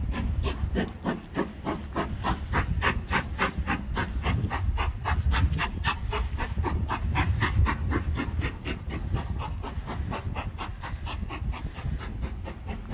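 Steam locomotive working hard with a train of coaches, its exhaust chuffing in a quick, even beat of several strokes a second over a low rumble. The beat grows fainter near the end as the train draws away.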